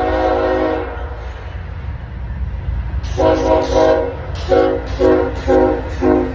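A train rolling by with a steady low rumble. Its horn holds a chord that cuts off about a second in, then sounds again in a series of blasts in the second half, the first longer and the rest short.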